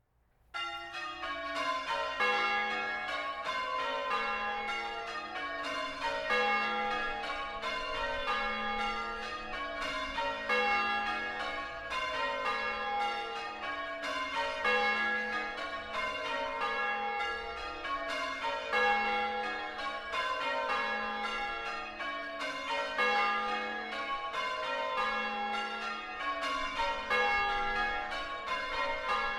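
Ring of six church bells in A-flat, tenor about 8 cwt, rung full-circle in change ringing, starting about half a second in. The strikes come in repeated runs, each falling in pitch from the highest bell to the lowest.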